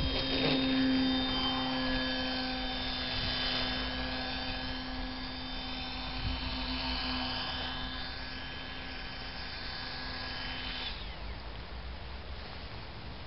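Motor and propeller of a 48-inch Nutball radio-control plane running steadily in flight, a droning whine whose pitch shifts slightly as the plane passes. It cuts off about eleven seconds in.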